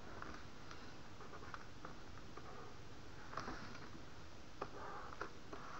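Faint scattered clicks and light scratchy rubbing over a low room hiss, from hand work on a computer pointing device during brush strokes.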